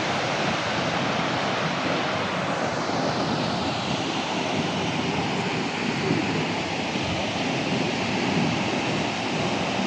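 Steady rushing noise of a large waterfall, Howick Falls, heard from the viewpoint.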